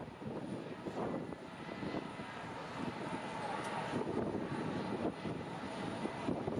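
Airliner engines running at an airport, a steady rushing noise that swells slightly midway.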